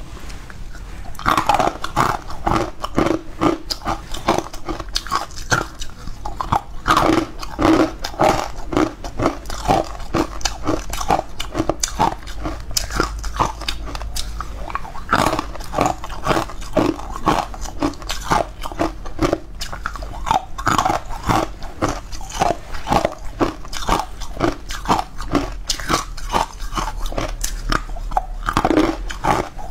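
Close-miked biting and chewing of green powder-coated cubes: a steady run of crisp crunches, a few a second.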